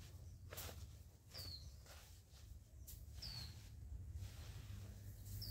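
A small bird giving three short chirps that fall slightly in pitch, about two seconds apart, over faint outdoor ambience with a few soft rustles or steps.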